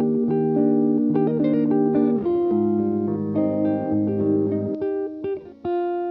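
Background music of plucked guitar, a melody of short notes over held bass notes, ending on one held chord.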